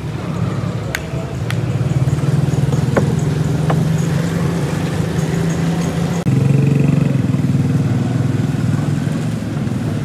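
A motor vehicle's engine running steadily close by, its hum louder from about six seconds in. There are a few light knocks over it in the first four seconds.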